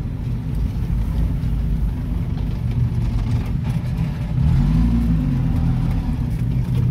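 Off-road vehicle's engine running at low speed, heard from inside the cabin while crawling along a rough track, with a brief rise and fall in engine speed about four and a half seconds in.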